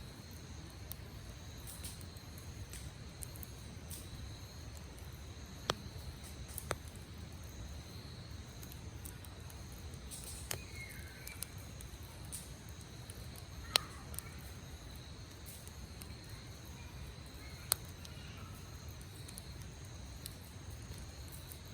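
Wood campfire burning, with a handful of sharp crackling pops over a low steady rumble; the loudest pop comes about two-thirds of the way through. Insects trill steadily in the background.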